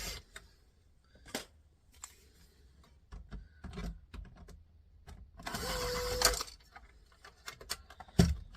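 Cordless screwdriver motor running for about a second, a steady whine over a buzz, as screws come out of the turntable unit's casing; light clicks of small metal parts being handled around it.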